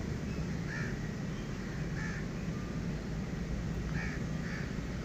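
Crows cawing: a few short calls spaced about a second apart, two of them close together near the end, over a steady low background rumble.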